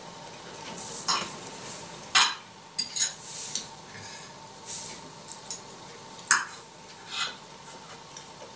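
Metal fork clinking and scraping on a plate as a piece of food is cut and picked up. There are a handful of short, sharp clinks, the loudest about two seconds in and again about six seconds in.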